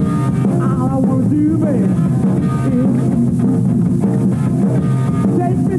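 Rock music with electric guitar and drums, playing loudly and steadily.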